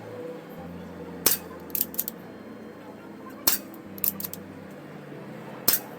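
Artemis CP2 CO2 air pistol firing three shots about two seconds apart, each a sharp crack followed by a few lighter clicks.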